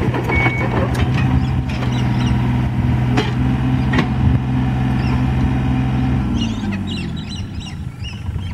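Yanmar VIO27 mini excavator's three-cylinder diesel running steadily under load, with a few clanks from the machine and one last beep of its travel alarm at the start. About six and a half seconds in the engine revs fall away toward idle.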